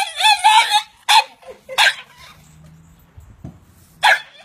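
French bulldog giving a run of high, squeaky, dolphin-like yelps that bend up and down in pitch, then three short sharp yelps spaced out over the next few seconds.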